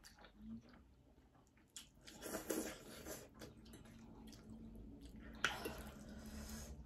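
People slurping and chewing spicy Korean fire noodles, with two louder slurps, one about two seconds in and one about five and a half seconds in, and light clicks of forks against plates.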